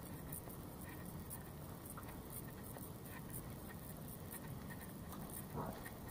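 Faint footsteps of a person walking, about two steps a second, over a low steady outdoor background rumble.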